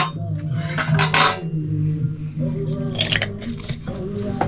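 Metal spoon clinking and scraping against a steel plate during eating: a sharp clink at the very start, then more scrapes about a second in and again about three seconds in.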